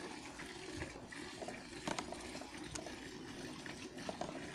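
Milk squirting into a steel pail as a cow is hand-milked, a steady streaming and frothing sound, with a few light clicks.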